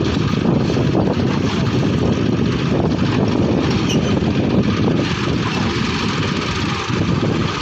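John Deere 5310 tractor's diesel engine running steadily, loud and close.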